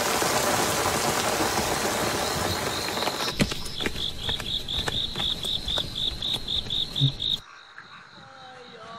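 Heavy rain hissing steadily. A few seconds in it gives way to scattered drips and an insect chirping in rapid high pulses, about four or five a second. That cuts off abruptly near the end, leaving a quieter background where frogs start to croak.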